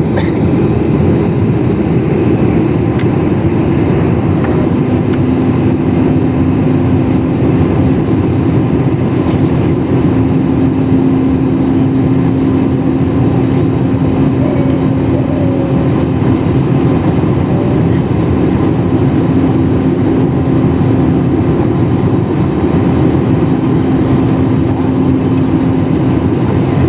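Passenger jet on its approach to landing: a steady rush of engine and airflow noise, with a low steady hum joining about five seconds in.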